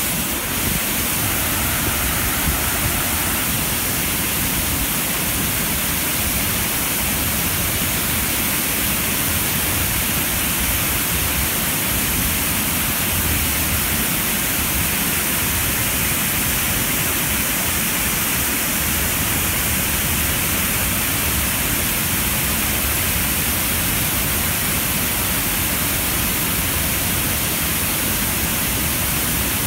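Water pouring through the gates of a concrete dam and crashing into the river below: a loud, steady rush of falling water.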